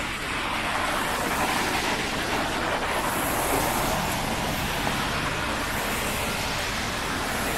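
Road traffic passing on a wet street: a steady hiss of car tyres on wet pavement that swells over the first couple of seconds and then holds.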